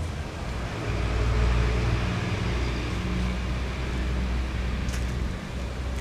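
A motor vehicle's engine running, a low rumble that swells about a second in and drops away near the end.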